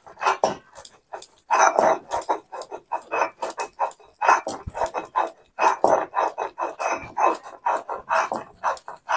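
Stone roller on a flat stone grinding slab (sil-batta) being rolled back and forth, grinding green chillies and garlic to a paste, in quick rhythmic rasping strokes.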